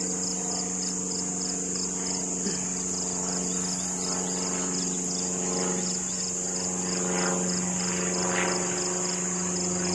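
Honey bees buzzing around an open hive, a steady low hum, with a few louder passes of single bees near the microphone later on. Behind it runs a constant high, pulsing insect trill.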